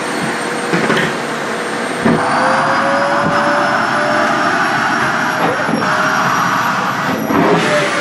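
SHARP EC-KP7F-A vacuum cleaner running with its bare pipe end sucking in a thin cotton dress, a steady motor whine over rushing air. The whine rises in pitch about two seconds in as the cloth is drawn in and plugs the pipe, with a few faint knocks of the pipe and fabric.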